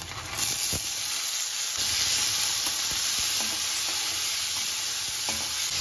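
Wet, soaked chana dal hitting hot tempering oil in a kadhai: a loud, steady sizzle that starts about half a second in. The dal is stirred with a spatula, with a few light scrapes against the pan.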